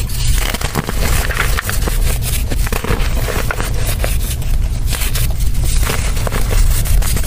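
Clods of dry red soil being crushed and crumbled by hand into a plastic tray: continuous dense crunching and crackling as the dirt breaks apart and falls, over a steady low rumble.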